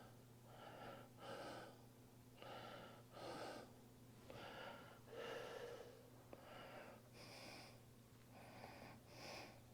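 Faint, slow breathing close to the microphone, in and out about every two seconds, from a person working quietly.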